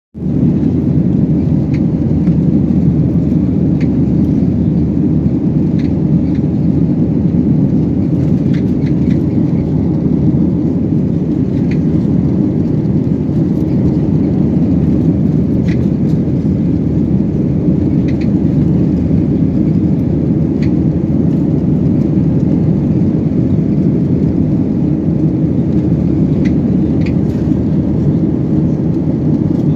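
Airliner cabin noise in flight: a steady, low rushing drone of engines and airflow heard from inside the passenger cabin, with a few faint ticks.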